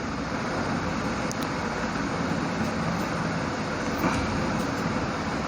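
Water running steadily through a urinal fitting and into the bowl, a continuous even rush, as the M-seal repair is tested: no leakage.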